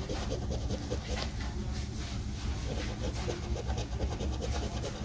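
A coin scratching the coating off a poker scratch-off lottery ticket, in quick repeated strokes.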